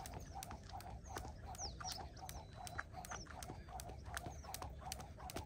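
A skipping rope turning steadily, with quick, regular taps on the ground, several a second. Small birds chirp now and then.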